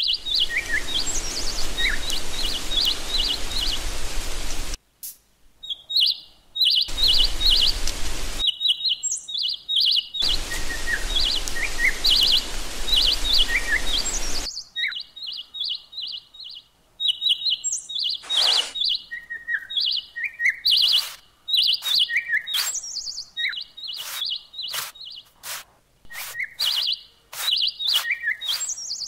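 Birds chirping in short repeated phrases throughout. In the first half, three stretches of hiss from sand poured out of a small woven basket stop and start, and later come short sharp scratches of a miniature rake through the sand.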